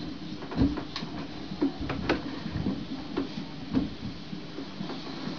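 Irregular soft clicks and knocks, roughly one or two a second, from hands and scissors working at the neck of an inflated latex balloon.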